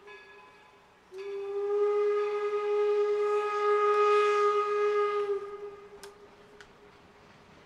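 Steam locomotive whistle blowing one long, steady single-note blast that starts about a second in and dies away a little past the middle, after the tail of a fainter blast at the same pitch.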